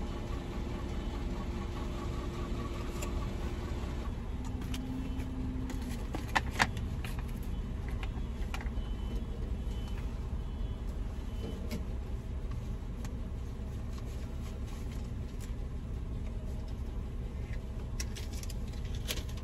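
Van engine idling, a steady low rumble heard from inside the vehicle, with scattered faint clicks and two sharp clicks about six and a half seconds in.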